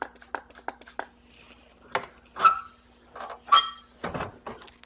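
Metal clinks and rattles of hand tools being handled, with two louder ringing clinks in the middle and a dull thump near the end, over a faint steady hum.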